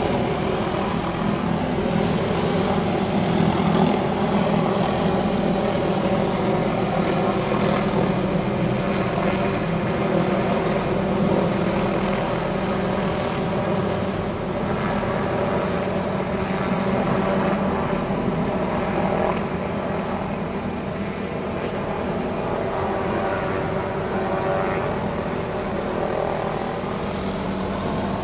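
Helicopter carrying a hanging aerial tree-trimming saw, its rotor and engine running steadily overhead as one continuous pitched drone.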